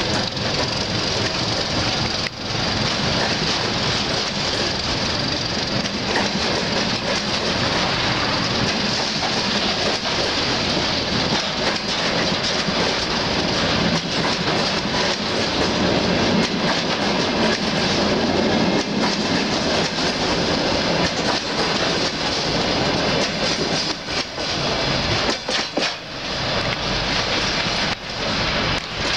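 Freight train of open-top wagons rolling past close by: a steady, loud rumble of steel wheels on the rails, clattering over the joints. Near the end the noise breaks up with a few dips and knocks as the last wagons go by.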